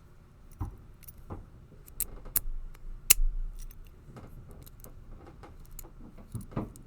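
Scattered sharp metallic clicks and clinks of a Master Lock No. 19 padlock cutaway being handled and worked, the loudest about three seconds in.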